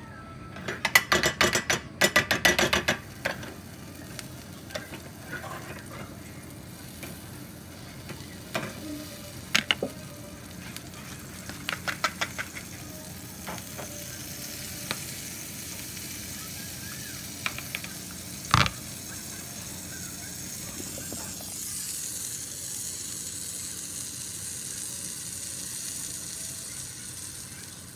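A utensil stirring batter in a mixing bowl with rapid clicking, then scattered clinks and one sharp knock. From about three-quarters of the way through, a steady sizzle of pancake batter frying in a hot pan.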